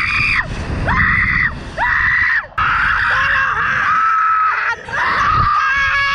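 Two people screaming while riding a slingshot ride: several short, high screams, then one long scream of about two seconds in the middle, then more short ones. A low rushing noise runs under them.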